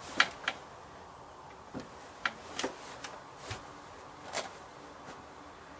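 A scatter of sharp clicks and knocks, about eight in five seconds, the first the loudest: close handling noise.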